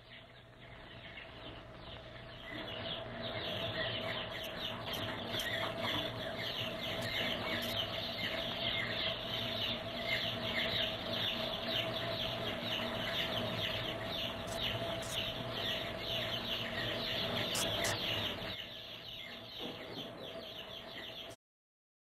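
A flock of pigeons in flight: a dense, busy fluttering of many wings and bird calls that builds over the first couple of seconds, weakens near the end and cuts off suddenly.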